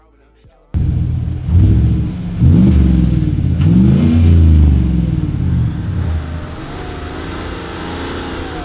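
Pickup truck engine launching hard from a standstill about a second in. The pitch climbs, drops back and climbs again as it shifts up through the gears, then settles into a steadier run.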